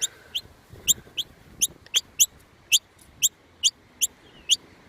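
Nestling birds calling: a steady series of short, high, rising cheeps, about two a second.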